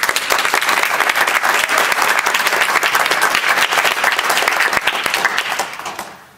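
Audience applause: many hands clapping at once, loud and steady, dying away near the end.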